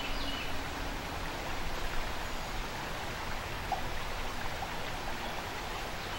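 Shallow river flowing over a riffle: a steady, even wash of running water, with a few faint bird chirps at the very start.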